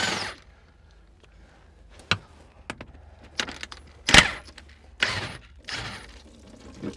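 Scattered metal clicks and knocks of hand tools and bolts against the steel belly pan of a John Deere 650K dozer, the loudest knock about four seconds in, with two short rasping scrapes soon after.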